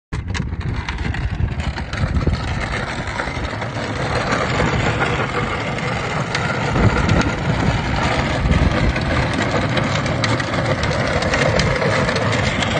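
Plastic wheels of a Power Wheels ride-on toy car rolling over rough, uneven ground, a steady rumbling rattle with many small clatters.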